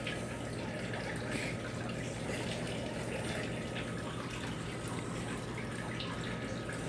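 Steady low hum and hiss of background noise, with faint scattered rustles and light taps.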